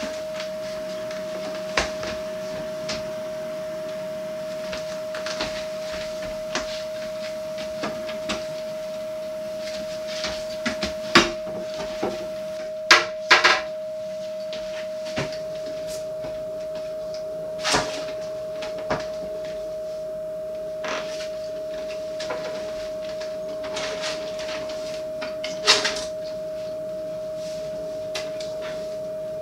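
Kitchen drawers and cabinet doors being pulled open and knocked one after another: an irregular string of clatters and thuds, with a few louder bangs near the middle. Under them runs a steady, single high-pitched tone.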